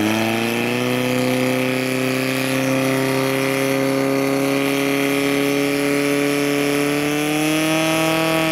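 Portable fire pump engine running at full revs and holding steady as it pumps water out to the attack hoses, edging a little higher near the end.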